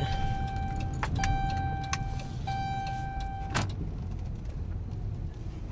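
Dodge Grand Caravan's warning chime beeping in the cabin. It gives three long, steady electronic beeps of about a second each with short gaps, stopping about three and a half seconds in. Under it runs the low rumble of the van's engine and road noise.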